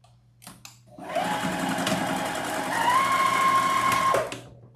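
Electric home sewing machine stitching a seam through two layers of felt: it starts about a second in, runs steadily with a motor whine that steps up in pitch as it speeds up partway through, and stops shortly before the end.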